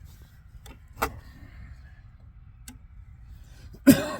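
A couple of sharp metal clicks from parts being handled, then a loud cough near the end.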